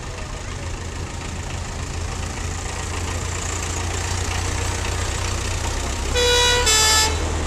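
Heavy vehicles passing at low speed with a steady low engine rumble, then two short toots of a vehicle horn in quick succession about six seconds in.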